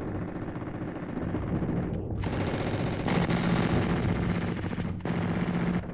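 War-film battle soundtrack played back: dense, rapid machine-gun fire mixed with gunshots, heaviest from about two seconds in until near the end.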